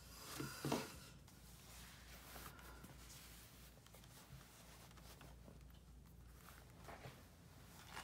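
Faint rustling and handling of a cloth dust bag as a leather planner is drawn out of it, louder for a moment just under a second in.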